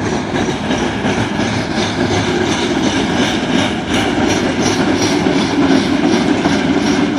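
Norfolk Southern freight train rolling past at close range, steady noise of steel wheels on the rails with faint regular clicks as the cars pass over the track.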